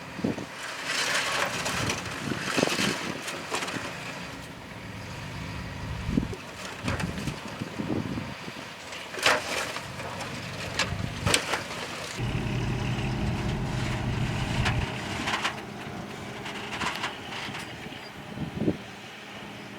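Heavy earthmoving machinery working: a diesel engine running with a stronger low drone for a few seconds past the middle, and several sharp metallic clanks and knocks throughout.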